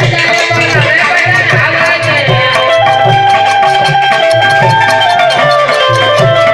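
Ramamandal folk-theatre music: a steady drum beat under held melody notes that step from pitch to pitch.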